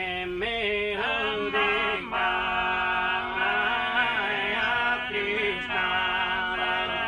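Canto a tenore: a Sardinian tenore quartet of male voices singing together in close harmony. The held chord breaks off briefly twice and re-enters.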